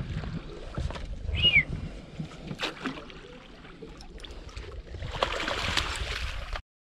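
Wind rumbling on the microphone, then water splashing about five seconds in as a hooked fish is scooped into a landing net beside the boat. A short chirp about a second and a half in.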